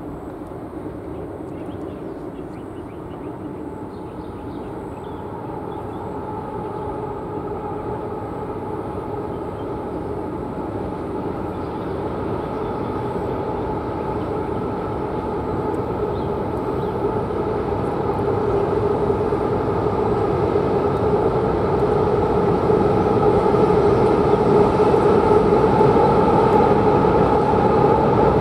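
Diesel locomotives of an approaching freight train running, a steady rumble with a humming drone that grows louder throughout as the train draws nearer.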